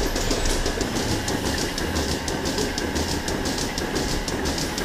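Rotary milking parlour machinery running: a steady mechanical rumble and hum with a rapid, even clatter of ticks, several a second, from the turning platform and the milking units.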